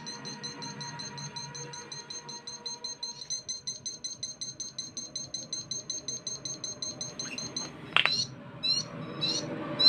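Homemade transistor siren circuit sounding: a rapid, even string of short high-pitched beeps, about six a second, for nearly eight seconds. Then a sharp click and a few short chirps that rise and fall in pitch.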